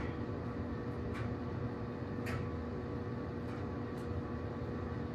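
Steady background hum and hiss with a faint steady tone, broken by a few soft clicks about a second apart.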